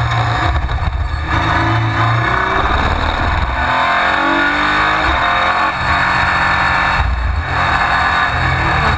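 Race car engine heard from inside the cockpit at racing speed, its note climbing and falling as the car accelerates and shifts gear. The note briefly changes about a second in and again around seven seconds, where the driver lifts or shifts.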